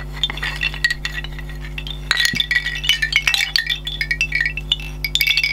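Hollow tubes of a bamboo wind chime clacking and ringing against one another as they are handled and untangled: many light knocks, some leaving a short ringing tone.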